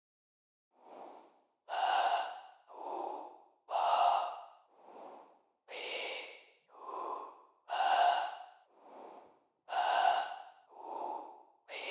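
Artificial breathing: signal-generator noise shaped by a gate envelope, a vowel filter and EQ, fed into automated reverb, making a steady cycle of breaths about one a second, alternating louder and softer like inhale and exhale.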